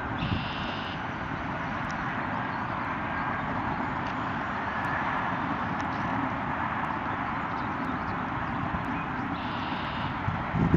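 Floodwater rushing and washing across a flooded road, a steady even rush that swells slightly midway.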